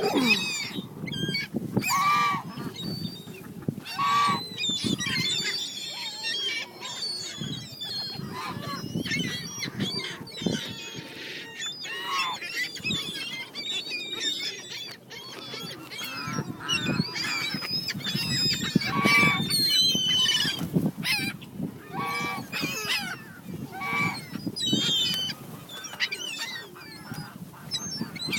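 Several birds being fed bread by hand, calling over and over in short, overlapping calls.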